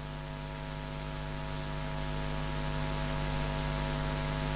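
Steady electrical mains hum with hiss over it from the microphone and sound system, growing slightly louder.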